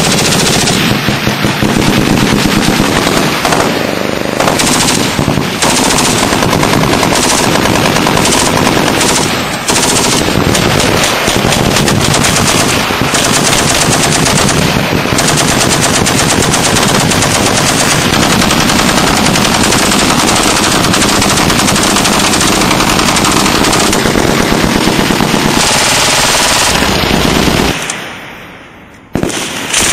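.50 caliber belt-fed machine guns firing long, continuous automatic bursts. The fire dies away briefly near the end, then starts again.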